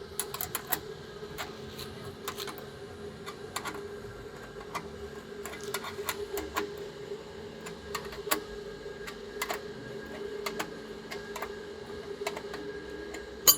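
Irregular light clicks and taps, a few every second or so, over a steady hum.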